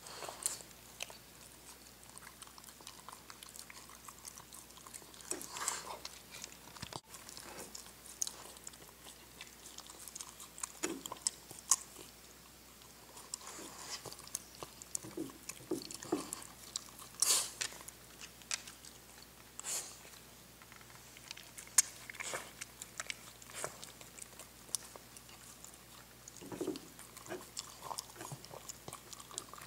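Xoloitzcuintli dog eating chopped food from a ceramic bowl: irregular wet chewing, smacking and licking, with sharp little clicks. The dog has only four fangs and no other teeth.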